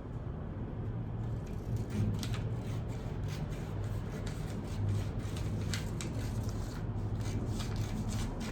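Paper pattern pieces being handled on a work table: light rubbing and scattered soft clicks, irregularly spaced, over a steady low hum.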